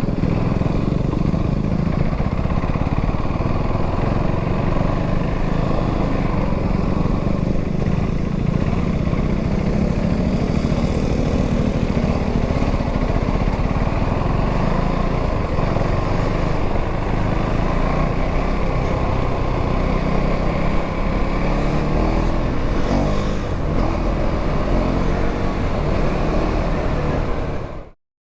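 KTM Duke 390 single-cylinder engine running steadily while being ridden, its pitch rising and falling a few times past twenty seconds in. The sound cuts off abruptly near the end.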